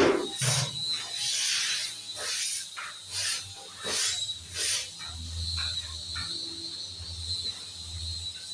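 Carpentry work: a series of short scraping strokes, roughly one a second, fading to fainter ones after about five seconds, over a faint steady hum.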